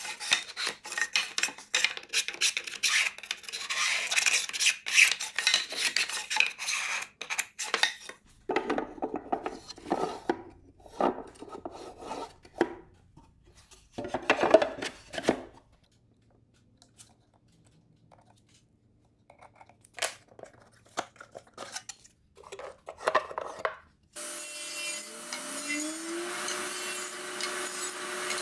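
Quick rasping strokes of a hand tool shaving the edges of a wooden box for several seconds, then scattered sliding and knocking of wood against sheet aluminum as the box is fitted. Near the end a table saw motor starts up, its pitch rising and settling into a steady run.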